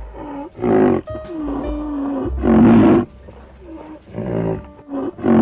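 A series of loud, deep animal calls, some short and one longer with a wavering pitch, the loudest about two and a half seconds in. Background music with held notes plays under them.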